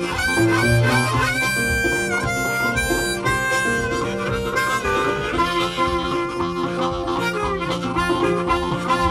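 Background music: a harmonica playing held, bending notes over guitar.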